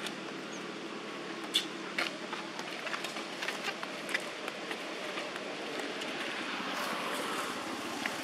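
Steady outdoor background hiss with scattered small clicks and rustles, the sharpest about a second and a half in.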